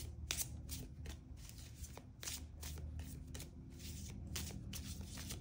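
A deck of tarot cards being shuffled by hand: a string of short swishes and flicks, a couple a second.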